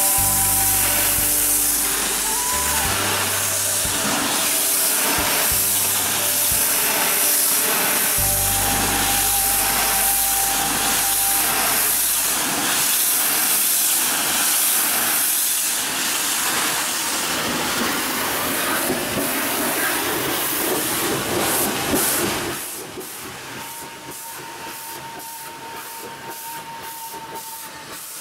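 High-pressure washer jet hissing steadily as it blasts fouling off a yacht's underwater hull and rudder, with the washer's motor running underneath. About 22 seconds in the spray cuts off and the sound drops to a quieter machine running.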